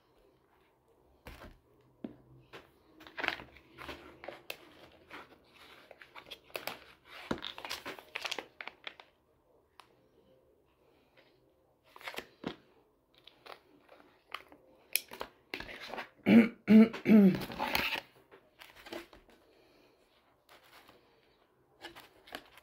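Sandwich-making sounds: scattered taps, clicks and rustles of a bun, a table knife and a soft plastic sauce packet. About two-thirds through comes the loudest sound, a couple of seconds of wobbling, squelching, pitched noise as mayonnaise is squeezed out of the packet.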